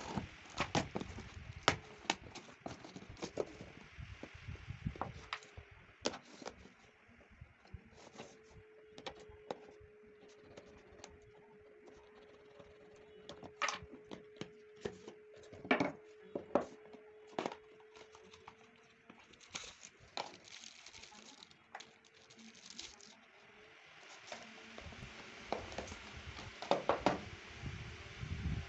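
Unboxing handling noise: a cardboard parcel and its tape torn open, then a phone box opened and its paper and plastic wrap handled, giving scattered sharp crackles, rustles and clicks. A faint steady hum runs under the middle stretch.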